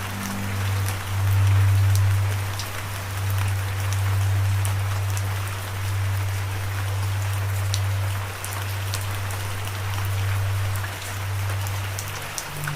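Steady rain, an even hiss with many small drops ticking through it, over a low steady drone that swells and eases every few seconds.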